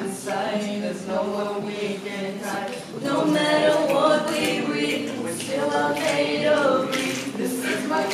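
Voices singing a slow pop song with little or no accompaniment under them; the singing gets louder about three seconds in.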